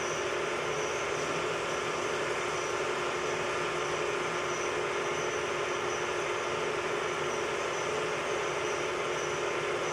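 Metal lathe running steadily, with a constant motor-and-gear hum and a few steady tones over an even hiss, as the end of a steel pin blank is faced.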